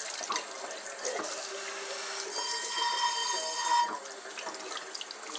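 Water running from a kitchen faucet sprayer and splashing into a small stainless steel bowl as it is rinsed out.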